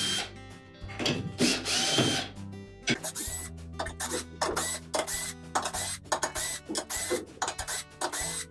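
Cordless drill with a nut-driver bit running in short bursts as it backs the long screws out of a washer's brake stator a few turns each, letting off the tension of the brake spring. Background music plays underneath.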